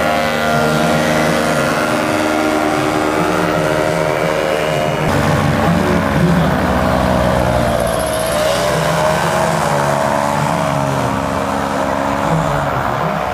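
Paramotor engine and propeller running at steady power as the powered paraglider flies low, its pitch dipping and rising again about two-thirds of the way through.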